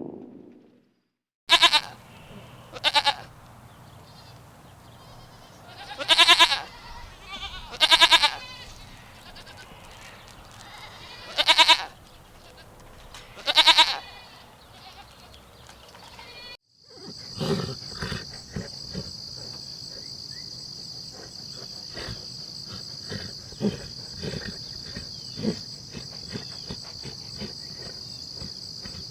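A young goat bleating six times over the first fifteen seconds, each call a short wavering cry. After a sudden cut, a cricket chorus keeps up a steady high trill with scattered soft clicks.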